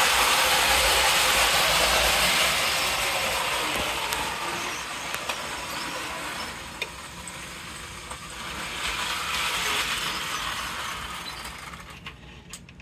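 Model steam locomotive running on three-rail O gauge track: a steady whirring clatter of motor and wheels. It fades, swells briefly, then dies away near the end as the locomotive comes to a stop.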